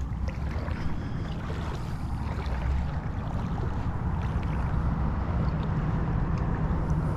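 Steady wind buffeting the microphone, a low rumble with a hiss over it, growing a little louder toward the end.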